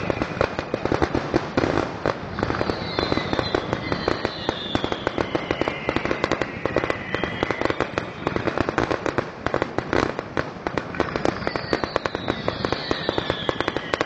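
Fireworks going off in rapid, dense crackling and popping throughout, with a whistling tone gliding down in pitch twice.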